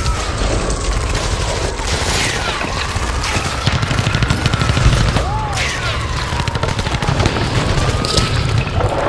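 Cartoon battle sound effects: rapid machine-gun fire and explosions, over a wailing tone that slowly rises and falls and a few falling whistles.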